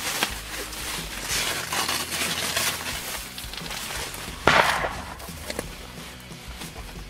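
Rustling of ground-blind fabric and camouflage clothing as a hunter climbs out through the blind's window opening, with one louder scrape about four and a half seconds in and a few light knocks.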